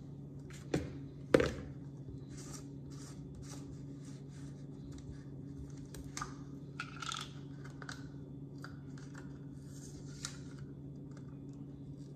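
A plastic garlic powder container being handled and opened: two sharp knocks about a second in, then a long run of short scattered clicks and crackles.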